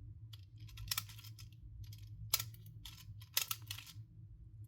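BB quick loader being worked to push steel BBs into the magazine of a Crosman CM9B Mako airgun: a few short sharp clicks, a second or so apart, with a quick run of them near the end, over a low steady hum.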